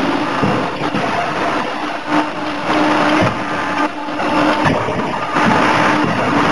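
Loud, steady machinery noise from a CNC forging hammer at work on a red-hot billet, with a hum that comes and goes every second or so and a few dull knocks.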